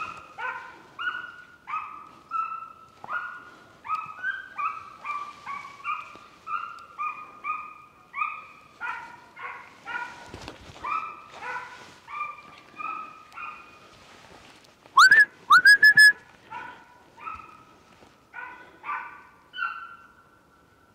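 A hunting dog giving tongue, a long run of short, high yelping bays about one or two a second, as hounds do when following a scent through cover on a driven boar hunt. About fifteen seconds in, four or five very loud, short, high cries sound close by.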